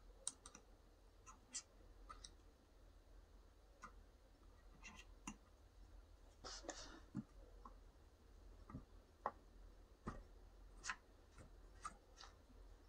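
Faint, scattered small clicks and taps of hand work on small parts: a steel wire and a heated nut being worked into a 3D-printed plastic body, and a screwdriver picked up near the end.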